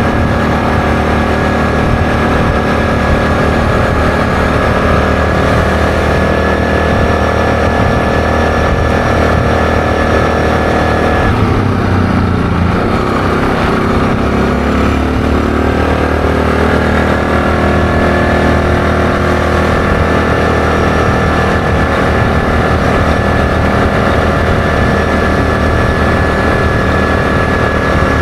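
ATV engine running steadily under way at cruising speed. About twelve seconds in its note dips, then climbs back up over the next few seconds.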